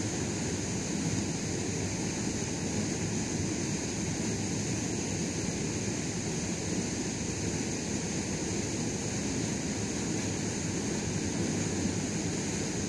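Steady wind rumbling on the microphone over lapping lake water, with a constant high hiss above it.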